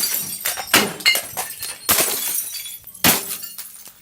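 Glass bottles thrown down onto a microwave, smashing in several separate crashes with ringing, tinkling shards.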